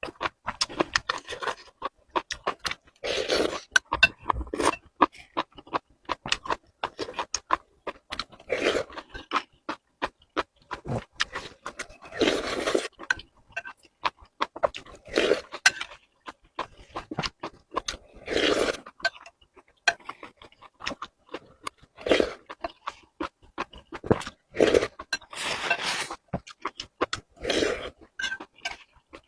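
Close-miked eating: wet chewing and lip smacking with many small clicks, and louder bursts every two to three seconds.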